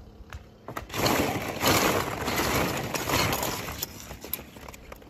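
A noisy clattering crash of hard objects, starting about a second in and lasting about two and a half seconds, with scattered sharp clicks before and after.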